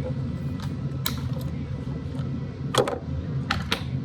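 A handful of short sharp clicks from hands and scissors working on the dismantled hair dryer's parts, the loudest just under three seconds in, over a steady low hum.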